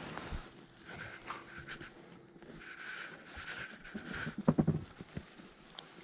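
Hands digging and rummaging through loose compost soil, a soft crumbling rustle, with a brief cluster of louder knocks and rubs close to the microphone about four and a half seconds in.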